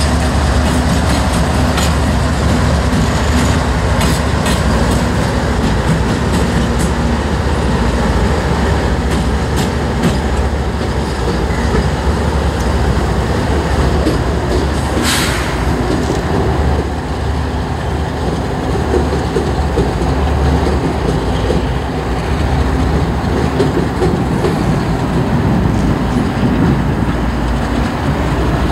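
Diesel locomotives of Norfolk Southern and BNSF rumbling past at low speed, their engines running steadily, with wheels clicking over rail joints. A brief hiss cuts in about halfway through.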